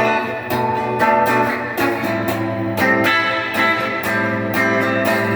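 Donner DST200 electric guitar played through an amplifier with its humbucker coil-split so only the outer coil is on: a quick run of picked notes and chords, several a second, over a steady low hum.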